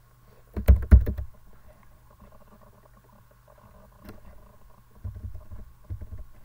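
Computer keyboard keystrokes: a quick run of sharp clicks about a second in, a single fainter click later, then a few low thumps, over a steady electrical hum.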